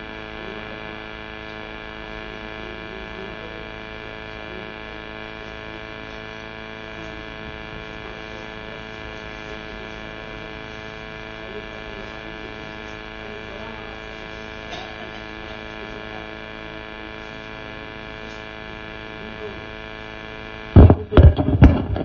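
Steady electrical mains hum, a buzz with many evenly spaced overtones. About a second before the end, loud irregular sounds break in.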